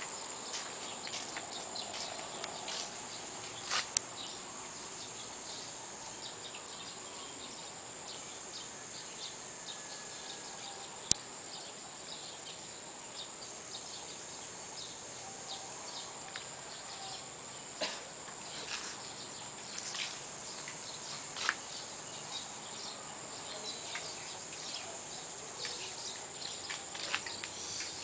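Steady high-pitched insect chorus outdoors, with a few scattered sharp clicks; the loudest click comes about eleven seconds in.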